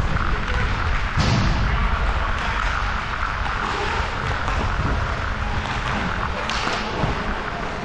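Ice hockey play: skate blades scraping across the ice under a steady low rumble, with two sharper scrapes or knocks, one about a second in and one near the end.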